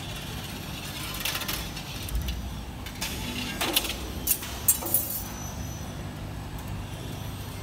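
CNC 3D wire forming and bending machine running: a steady low hum with a series of sharp metallic clicks and clinks as it works the wire, the loudest a little past halfway.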